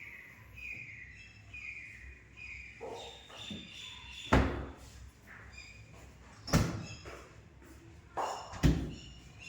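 Three loud slams about two seconds apart, each with a short ring, like wooden doors or panels shutting. Small birds chirp faintly throughout.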